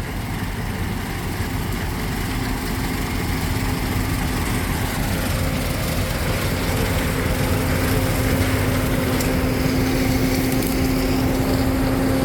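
Combine harvester running while cutting soybeans: a steady drone of engine and threshing, with a steady hum that comes in a couple of seconds in and holds, growing slightly louder.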